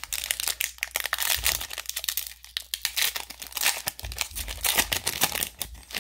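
Plastic wrapper of a football trading-card pack crinkling and crackling as it is handled and opened.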